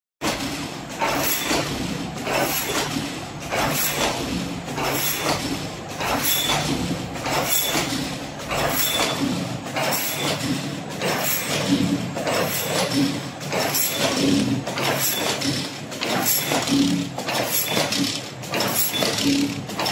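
Hexagonal wire mesh netting machine running, twisting galvanised wires into mesh, with a regular mechanical clatter about twice a second over a steady machine noise.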